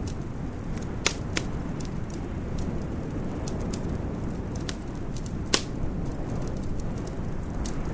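Wood fire crackling in a fireplace, with scattered sharp pops over a steady low rumble. The loudest pops come about a second in and again past five and a half seconds.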